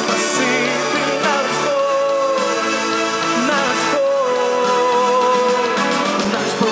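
Male solo voice singing over a symphony orchestra with strings, holding two long notes, the second starting about four seconds in.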